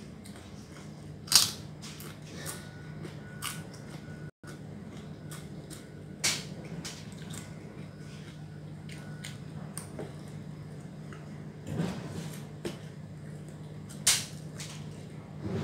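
Close-up crunching as crispy skin crackers (krupuk kulit) are bitten and chewed: three loud sharp crunches, about a second in, about six seconds in and near the end, with softer crunches between. A steady low hum runs underneath.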